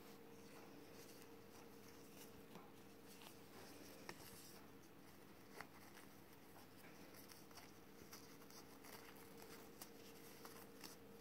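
Near silence: faint rustling and scattered small clicks of a ribbon being handled, folded and pulled through a loop, over a faint steady hum.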